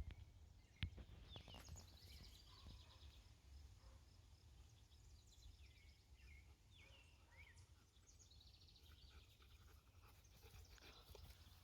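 Faint birdsong, with quick chirps and short whistled notes coming in scattered bursts over a low steady outdoor rumble. A single sharp click comes about a second in.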